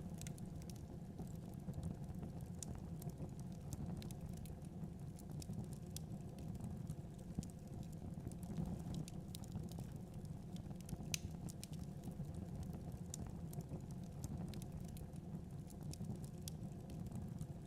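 Wood logs burning in a fireplace, crackling: sharp, irregular pops scattered over a steady low rumble of the fire.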